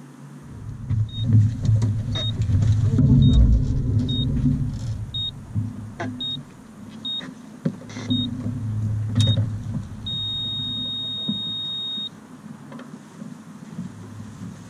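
Electronic sailing race timer counting down: nine short, high beeps about once a second, then one long beep of about two seconds, the pattern that marks the start of a race. Under it runs a low rumble.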